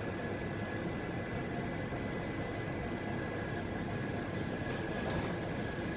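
Steady hum of an ET2M electric multiple unit standing with its onboard equipment running, heard inside the passenger car, with a thin high whine over it. A few faint clicks come about five seconds in.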